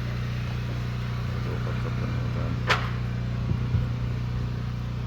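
A steady low mechanical hum, with one sharp knock about halfway through and a couple of faint knocks soon after.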